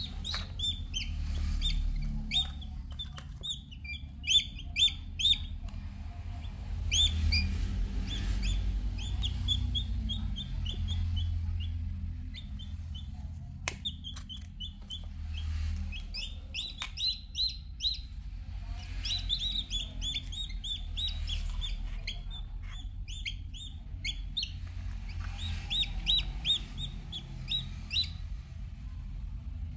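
Newly hatched chicks peeping: runs of short high cheeps, several a second, that come in bursts with short pauses between them.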